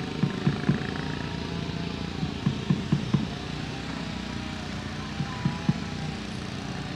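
A boat motor running steadily with a droning hum, with several dull knocks in three short clusters.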